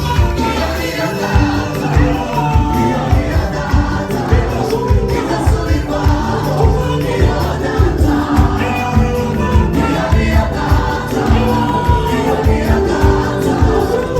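Gospel choir singing with a band behind it, over a steady drum beat.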